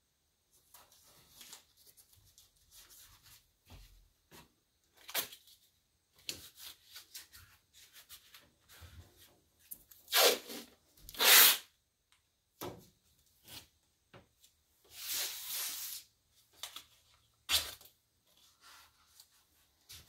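Hands moving and handling painting supplies: intermittent short rustles, scrapes and knocks. The two loudest come about ten and eleven seconds in, with a longer rustle around fifteen seconds.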